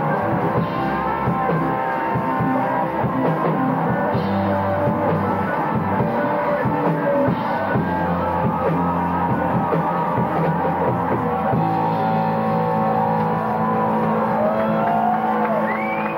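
Live rock band playing electric guitars, bass guitar and drum kit. A high, wavering melodic line comes in near the end.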